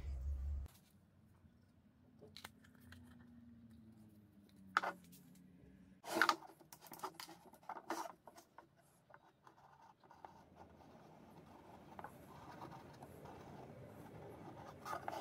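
Hard plastic PVC parts clicking and knocking on a wooden table in a few sharp strokes, the loudest about six seconds in. In the last few seconds a felt-tip marker held in a PVC jig rubs steadily against a grey PVC pipe piece as it is turned, scribing a cutting line around it.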